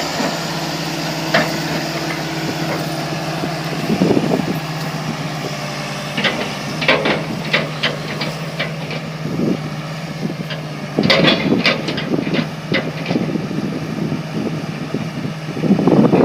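John Deere 690E LC hydraulic excavator's diesel engine running steadily, with metal clanks and knocks over it: one about a second and a half in, then bursts of clanking around six to eight seconds and eleven to thirteen seconds in.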